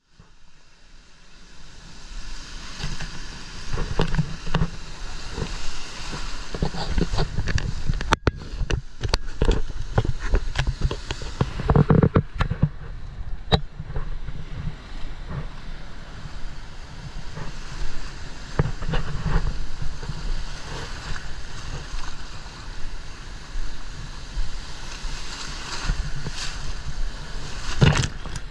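Gulf surf breaking and washing around a camera held low in the waves, with wind rumbling on the microphone, fading in over the first few seconds. Sharp splashes of water hit the camera throughout, one of the loudest near the end.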